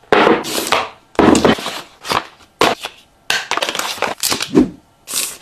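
Tablet packaging being handled during unboxing: a series of short, irregular rustling and scraping bursts of cardboard and plastic.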